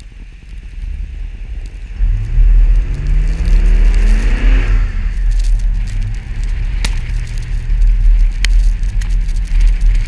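Chevrolet Avalanche V8 through a Dynomax Bullet muffler, revving up as the truck pulls through deep snow. Its pitch climbs for a couple of seconds, falls back sharply, then rises again, over a heavy low rumble of wind on the outside-mounted camera. Two sharp clicks come later on.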